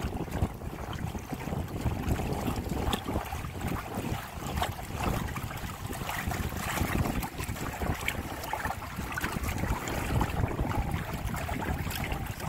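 Water rushing and splashing along the hulls of a Windrider 17 trimaran under sail, with wind buffeting the microphone, the level rising and falling unevenly.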